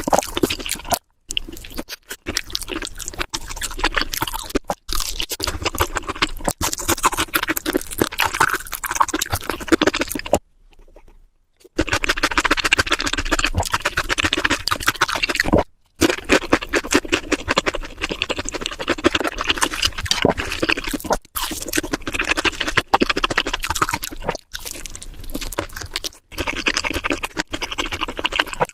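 Close-miked crunchy chewing of crispy fried food, a dense crackle of bites and chews. The sound drops out abruptly several times, once for about a second midway.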